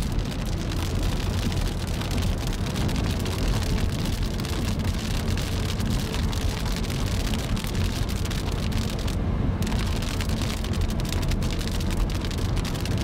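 Car driving on a wet motorway in rain, heard from inside: steady road and tyre noise with rain striking the windscreen as many fine ticks. The high rain hiss drops out briefly about nine seconds in as the car passes under a bridge.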